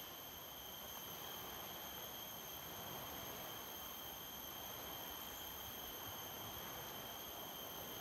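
Rainforest insects buzzing in a steady high-pitched drone, over a faint even hiss.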